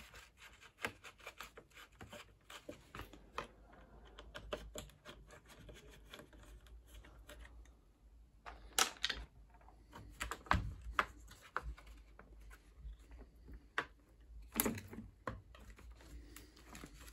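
Hard plastic washing-machine door parts handled and pulled apart by hand: a run of small irregular clicks and rattles, with a few louder knocks about halfway through and again near the end.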